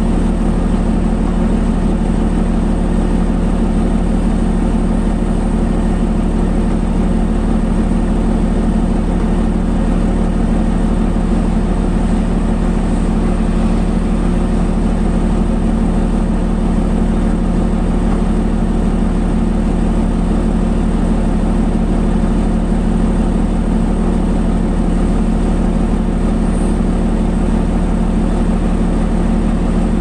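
An engine running steadily at one unchanging speed: a constant low hum with no revving or changes in pitch.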